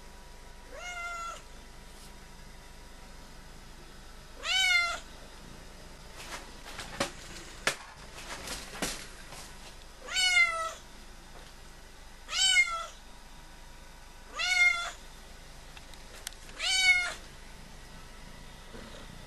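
Domestic cat meowing six times, each meow a short call that rises and then falls in pitch; the first is faint and the other five louder, coming every two seconds or so toward the end. A few light clicks and knocks come between the second and third meows.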